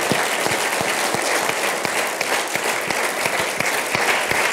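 Audience applauding: many people clapping steadily in a full hall.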